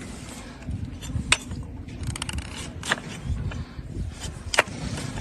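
A trimming blade cutting into a donkey's hard, dry, overgrown hoof horn, with three sharp cracks as pieces are cut away and a short run of fine scraping clicks between them.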